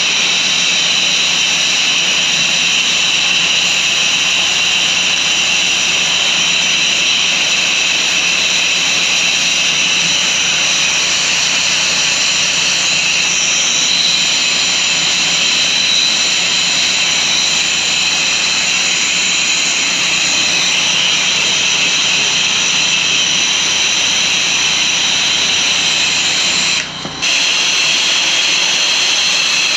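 Pressure washer spraying steadily: a loud, continuous hissing rush with a high whine, with one brief break near the end.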